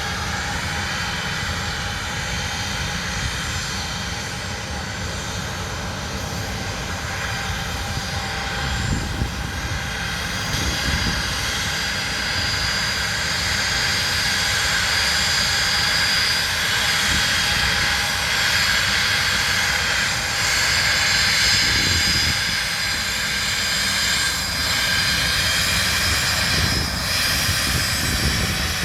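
Jet airliner engines running with a steady high whine over a low rumble, growing gradually louder over the first half.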